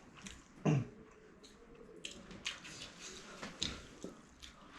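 Chewing and mouth smacks from eating momos: scattered short wet clicks. Just under a second in comes one louder, short, low sound whose pitch falls.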